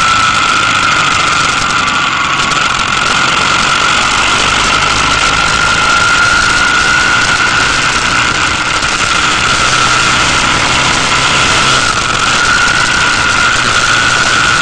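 Motorcycle engine running steadily under way, with a steady high whine and a constant rush of wind over the microphone.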